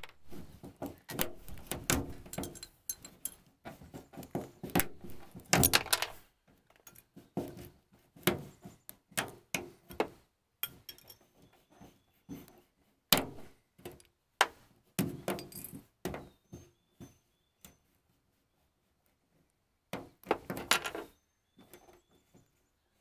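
Thread being sawed back and forth behind chrome plastic emblem letters to cut through their foam adhesive tape, with irregular scratchy rasps and clicks as the letters come loose. The sawing stops for a couple of seconds near the end, then comes back in a short burst.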